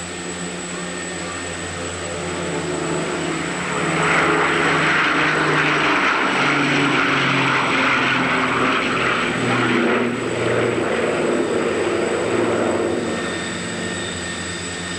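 Avro Shackleton's four Rolls-Royce Griffon piston engines with contra-rotating propellers droning as it flies low overhead. The sound swells about four seconds in, the engine note drops in pitch as the aircraft passes, and it fades near the end.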